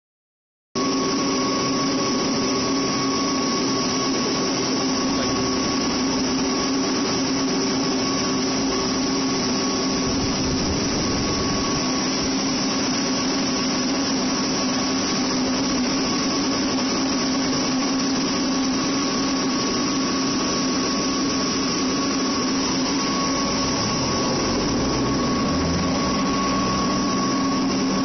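Yanmar ACH500 5-inch rice huller running steadily while hulling paddy rice: a constant mechanical drone with a steady whine over it.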